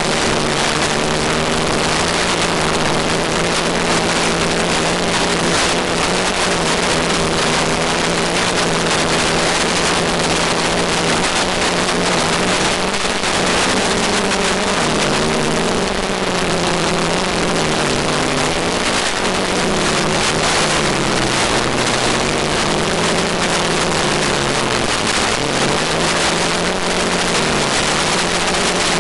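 Multicopter's electric motors and propellers humming, the pitch rising and falling, most in the second half, under a loud even hiss.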